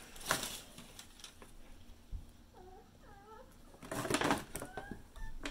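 A cat giving two short, whiny mews about halfway through, then faint higher calls near the end. There is a louder burst of rustling around four seconds in.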